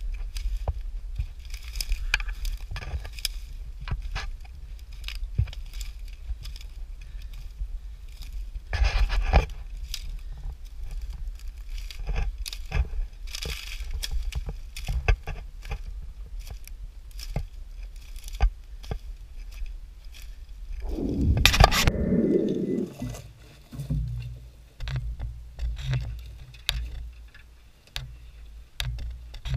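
Footsteps crunching over dry pine needles, twigs and brush while hiking, over a low rumble. About two-thirds of the way through comes a louder rustling scrape, after which the steps are softer and sparser.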